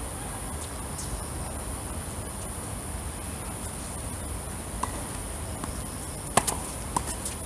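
Steady high-pitched chirring of night insects, such as crickets, over a low outdoor rumble. Near the end come a few sharp pops of a tennis ball being struck and bouncing on the hard court.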